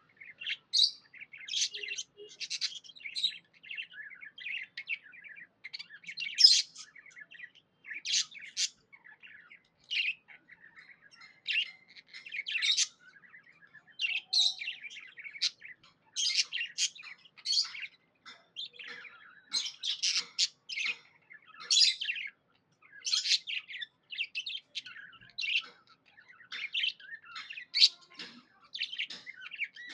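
Pet budgerigar (budgie) chirping: a steady stream of short, high chirps and warbling notes with hardly a pause.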